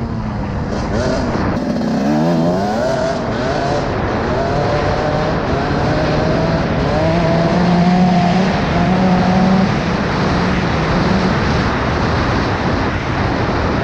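Suzuki RM125's two-stroke single-cylinder engine running, revved in a few quick rising sweeps about two seconds in, then holding a steady pitch.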